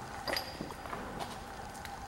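Footsteps on a floor strewn with debris: a few irregular sharp clicks and crunches, the loudest about a third of a second in with a brief high ring.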